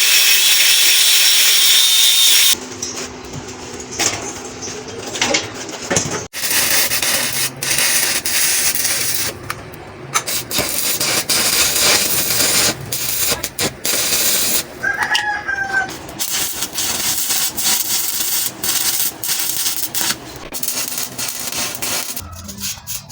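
Stick (shielded metal arc) welding: the arc crackles and sputters in a dense stream of irregular clicks, after a loud steady hiss in the first couple of seconds. A rooster crows once in the background a little past halfway.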